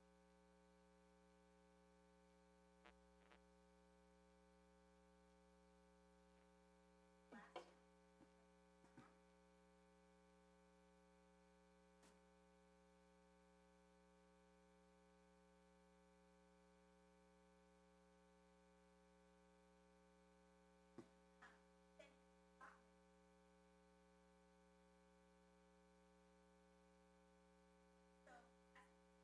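Near silence: a steady electrical mains hum, with a few faint, brief sounds now and then.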